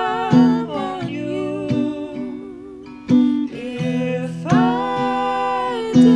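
Slow acoustic guitar picking under a long, wavering sung note. The voice drops away around two seconds in and comes back with a new held note about four and a half seconds in.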